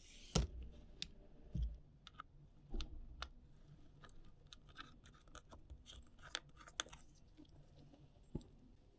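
Scattered light clicks and taps of a travel tripod's head and quick-release plate clamp being handled and adjusted by hand, with a few duller knocks in the first two seconds.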